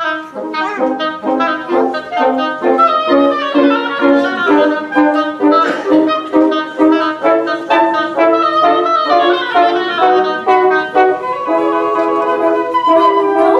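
Woodwind quintet of flute, oboe, clarinet, French horn and bassoon playing a lively passage of many short, separate notes, moving into longer held chords near the end.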